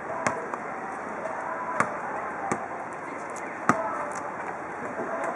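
Futsal ball being kicked during play: four sharp thuds in under four seconds, the loudest about a third of a second in, near two seconds and near four seconds, over a steady background haze.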